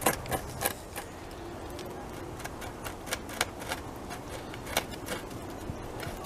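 Beaver gnawing a fallen tree limb: sharp, crisp crunching clicks as its incisors bite into the wood. They come quickly in the first second, then more spaced out.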